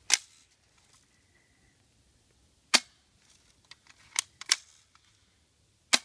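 Spring-powered airsoft M4 rifle firing: three sharp snaps, roughly three seconds apart. Lighter clacks come between the second and third shots, from the charging handle being pulled back to cock the spring for each shot.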